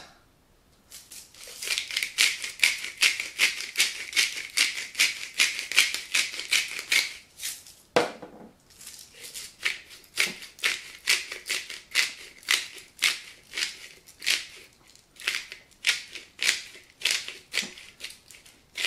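Hand-twisted spice mill grinding, a fast run of dry ratcheting crackles at about four to five a second, with a short break about eight seconds in before the grinding starts again.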